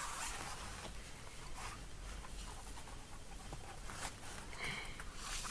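Fingers rubbing and scraping faintly along the inside of a bicycle tyre, feeling for a thorn or sharp object that caused the flat.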